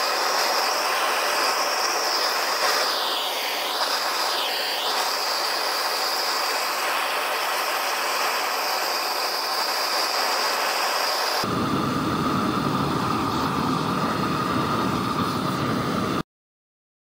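Harbor Freight propane weed torch burning at full output, a steady loud hiss of flame. About 11 seconds in it takes on a lower, deeper tone, and it cuts off abruptly near the end.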